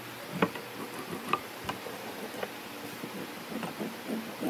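Scattered light clicks and knocks of a metal marking gauge being handled and set against a wooden board, the two sharpest about half a second and a second and a half in.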